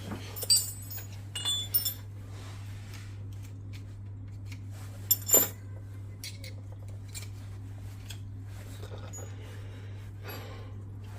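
A steady low hum, with a few short, light metallic clinks and clicks in the first half, such as small metal parts or tools being handled.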